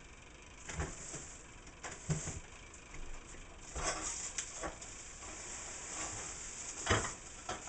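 Pots and utensils being handled at the stove: a handful of short knocks and clatters, starting about a second in, over a steady hiss.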